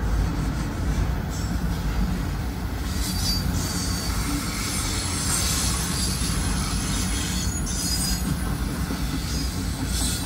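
Freight train of autorack cars rolling past: a steady low rumble of wheels on rail, with a high wheel squeal and hiss that swells in the middle and again near the end.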